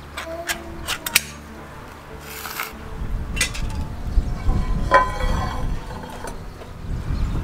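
Ring-pull lid being peeled off a tin of pineapple rings, with sharp metallic clicks and a short tearing scrape in the first few seconds. A heavier clunk follows about five seconds in as the metal tin and a cast-iron skillet are set down on a stone countertop.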